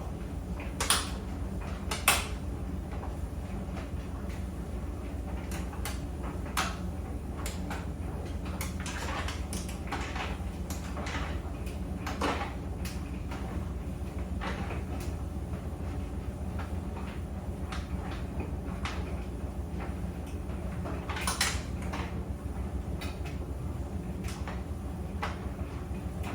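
Clothes dryer running with a steady low hum, and irregular clicks and knocks from the tumbling load, the two loudest knocks coming close together a second or two in.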